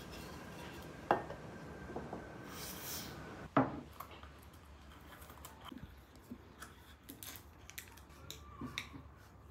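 Kitchenware being handled and set down: two sharp knocks, about a second in and again at about three and a half seconds, with a short rustle between them, then a run of light clicks and taps.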